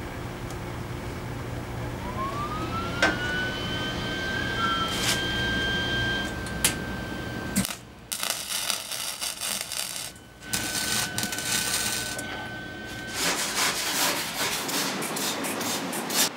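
Hand-held electric grinder switched on, its whine rising in pitch as the motor spins up about two seconds in, then running steady. After a sudden change, grinding noise comes in uneven bursts with the same steady whine under part of it.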